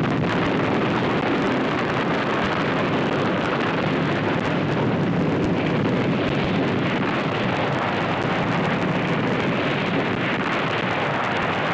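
Sustained rumbling roar of a nuclear explosion's blast, a film sound effect, loud and unbroken throughout.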